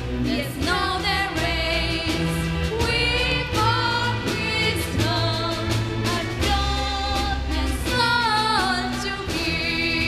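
Live string orchestra, with cellos and violins, accompanying female singing; the voice holds long notes with vibrato over sustained chords.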